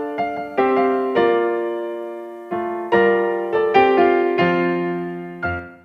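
Slow piano music: sustained chords struck one after another, each left to ring and fade. It stops just before the end.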